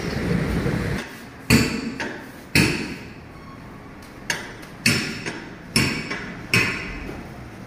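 About six sharp hammer-like strikes at irregular spacing, each ringing briefly, as in tyre-shop work. A low engine rumble, the tractor's diesel, runs under the first second and then stops.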